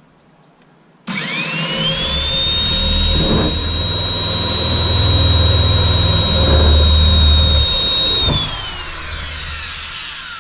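Power drill with a hole saw cutting through the aluminium front wing of a Series III Land Rover. The motor whine rises sharply as it spins up about a second in, holds one steady pitch with a low grinding rumble while the saw cuts the panel, then falls away in pitch and fades as the trigger is released near the end.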